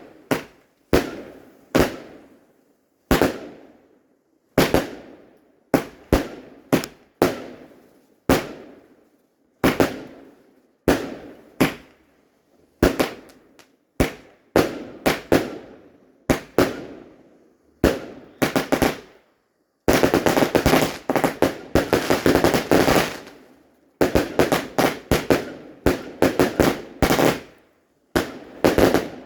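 Fireworks going off: a steady run of sharp bangs, about one every half-second to second, each echoing away. About twenty seconds in, a dense stretch of rapid crackling bangs follows.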